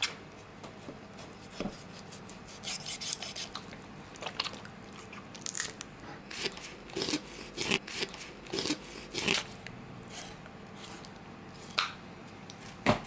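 Knife cutting through the skin and flesh of a raw fish, the wet skin being pulled away: a run of short cutting and scraping strokes, with two sharper knocks near the end.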